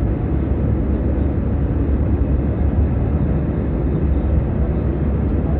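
Steady jet engine and airflow noise inside an airliner cabin in flight: a constant low rumble.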